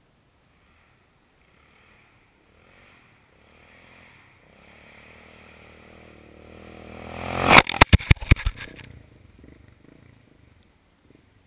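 A Yamaha TT600R single-cylinder four-stroke dirt bike approaches with its engine rising in pitch and growing louder. About eight seconds in comes a loud burst of clattering knocks as it rides over the camera, and then the engine fades away.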